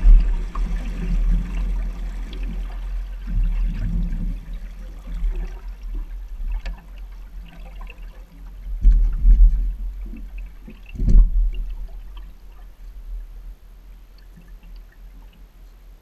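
Water sloshing and gurgling against a bass boat's hull as the boat comes off plane and settles. The sound fades steadily, with two low thumps about nine and eleven seconds in.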